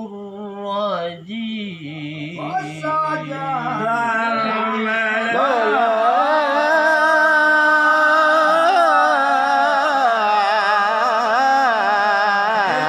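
A man's voice chanting an Arabic Quranic recitation in a slow, melismatic style, holding long wavering notes. The pitch climbs and the voice grows louder about four seconds in.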